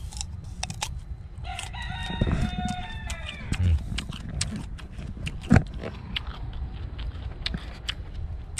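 A rooster crowing once, a long held call starting about one and a half seconds in, over scattered sharp clicks close by.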